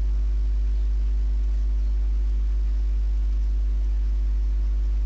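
Steady low electrical mains hum with a faint buzz of its overtones, unchanging throughout: hum picked up by the recording setup.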